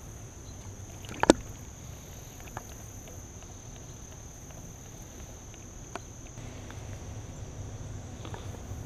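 Creek-bank ambience: a steady high-pitched insect drone over a low rumble, with one sharp click about a second in and a few fainter ticks later.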